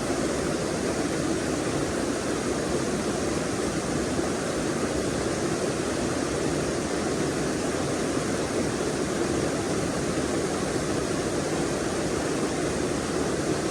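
Forest stream flowing: a steady rush of running water that does not change.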